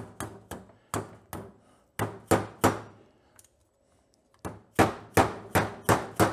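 A mallet taps the end of a screwdriver set against a brake pad retaining pin in a 1982 Honda GL1100 Gold Wing rear brake caliper, to drive the pin out. It makes a string of sharp metallic taps, stops for about a second and a half midway, then gives a quicker run of taps near the end.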